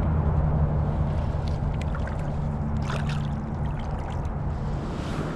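Water splashing and trickling around a hand as a largemouth bass is released into shallow water, with a few soft splashes, over a low steady rumble.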